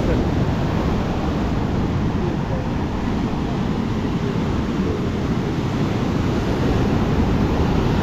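Storm surf breaking on the shore in a steady, dense wash, with wind buffeting the microphone.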